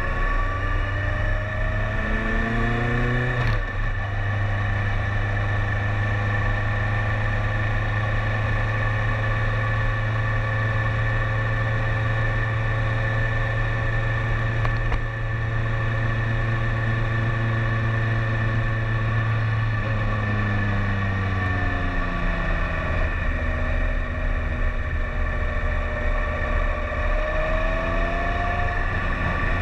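2012 BMW K1300S HP's inline-four engine under way: revs climb for the first few seconds, break with a brief jump about three and a half seconds in as it shifts up, then hold steady. Around twenty seconds in the revs fall off, stay level for a while, and climb again near the end.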